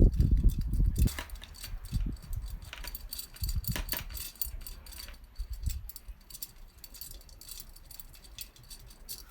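Loose steel wire spokes clinking and jangling against each other and the rim in irregular clicks as they are threaded through a moped wheel's hub and rim, with a low handling rumble in the first second.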